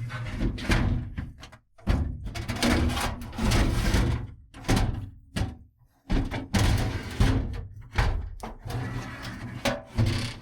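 Welding thin sheet-metal drawer panels: about five bursts, each a second or two long with short breaks between, as the pieces are tack and spot welded together.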